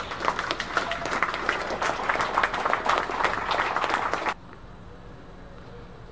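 Small group of spectators clapping at the end of a tennis point, stopping abruptly about four seconds in.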